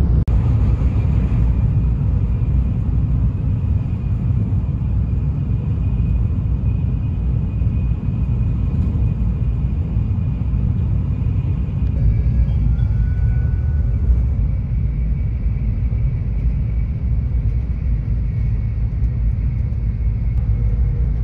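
Shinkansen running at speed, heard from inside the passenger car as a steady low rumble with a faint high tone above it.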